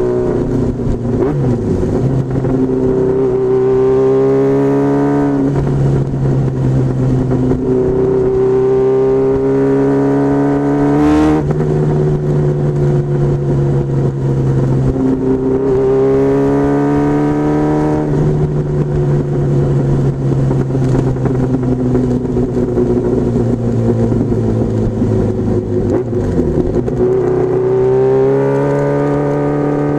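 Honda CBR1000F Hurricane's inline-four engine pulling through the gears. The revs climb and then drop sharply at each shift several times, with a sharp click at one quick shift. In the latter half the revs fall slowly for several seconds, then dip and climb again near the end.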